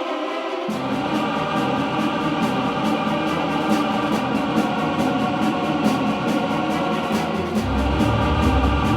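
Background music with a steady beat; bass comes in just after the start and gets heavier near the end.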